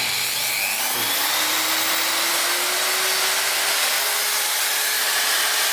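Electric drill of about 600 watts running steadily as a load on the inverter, with a motor whine that rises slowly in pitch.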